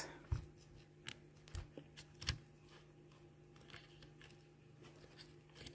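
Faint clicks and small scrapes of fingers working a small plastic wire connector loose from a power bank's circuit board: several light ticks in the first two and a half seconds, then only a few weak ones, over a steady low hum.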